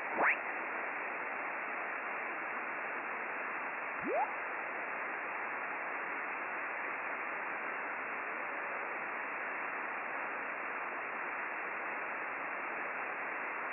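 Icom IC-9700 transceiver receiving on upper sideband with no station in the passband: a steady, even hiss of receiver static. Two short falling whistles, one at the very start and another about four seconds in, are a carrier sweeping past as the tuning dial is turned.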